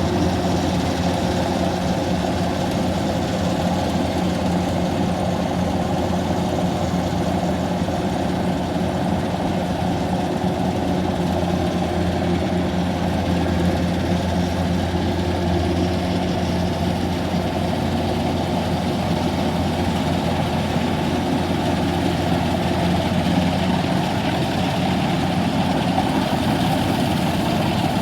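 Kubota rice harvester's engine running steadily with a low, even drone.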